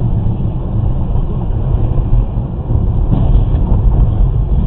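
Car driving at speed, a steady low rumble of tyres and engine heard through a dashcam inside the cabin.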